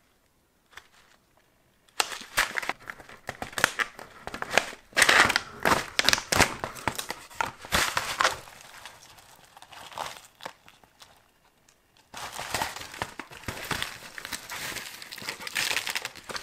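Foil-lined plastic food pouch crinkling and rustling in the hands as it is torn open and rummaged through for the sachets inside. It starts about two seconds in, pauses briefly about two-thirds of the way through, then crinkles again until it stops just before the end.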